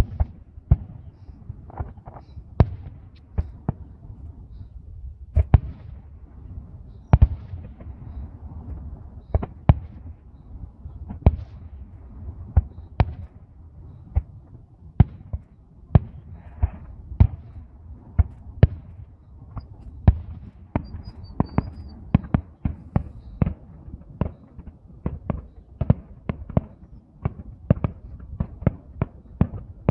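Fireworks going off: a long run of sharp bangs over a low rumble, about one every second at first and coming faster, several a second, over the last third.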